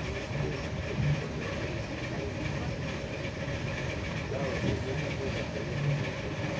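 ED4M electric multiple unit running at speed: a steady rumble of wheels on rail, with an occasional low thump, about a second in and again near the end.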